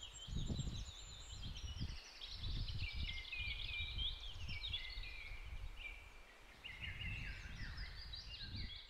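A songbird singing a long, unbroken, fast high-pitched warbling song. Wind buffets the microphone in low, uneven gusts under it.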